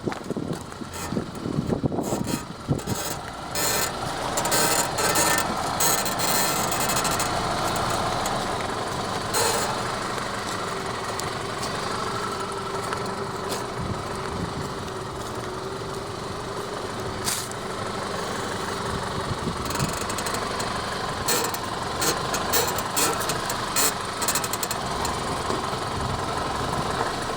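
Audi A4 B8 with its engine running and a drawn-out squeak from the front right suspension ball joint, a sign that the ball joint is defective. A few sharp clicks are mixed in.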